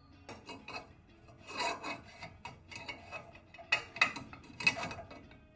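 Light metallic clinks and scraping of steering tie rod parts being handled and fitted by hand, the notched lock washer being seated, with a few sharper clinks about halfway through and near the end.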